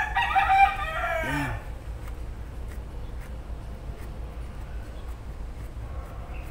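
A rooster crowing once, a loud call of about a second and a half that drops in pitch at the end, over a steady low hum.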